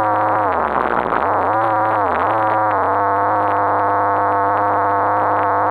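RC car motor whining, muffled by the sealed action-cam housing. Its pitch dips and climbs with the throttle in the first couple of seconds, then holds steady as the car runs on.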